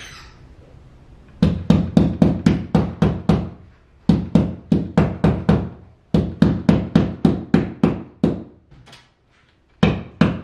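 Hammer driving small nails through a heavy-duty mirror hanger into the wall: three runs of quick strikes, about four a second, with short pauses between them, then two more strikes near the end.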